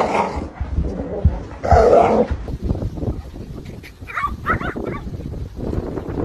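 A dog barking and yipping: a loud bark about two seconds in, then several short high yips near the middle.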